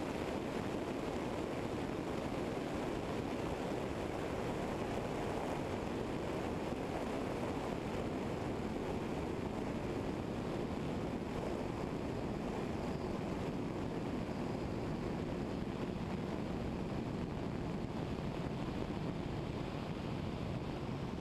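Steady rush of airflow over a wing-mounted camera, mixed with the Eurostar EV97 microlight's engine and propeller running evenly in flight.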